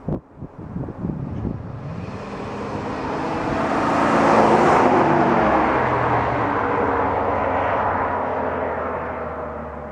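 2003 Ford F250's 5.4-litre V8 running through a Gibson Dual Extreme exhaust as the truck drives past: the exhaust note builds as it approaches, is loudest about halfway through and fades as it goes away. A few brief, sharp knocks come at the very start.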